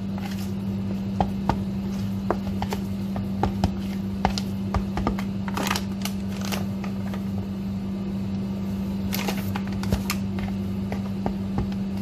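Metal spoon stirring dough in a plastic mixing bowl, with scattered clicks and scrapes and a few brief swishes. A steady low hum runs underneath.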